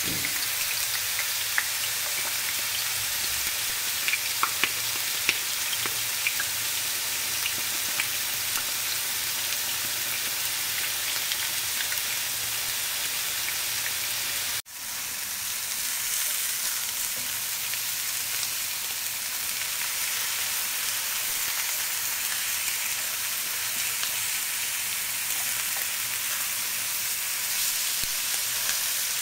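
Eggplant slices and bone-in lamb frying in hot sunflower oil: a steady sizzle with sharp pops and crackles, most of them in the first several seconds. The sound drops out for a moment about halfway through, then the sizzle carries on.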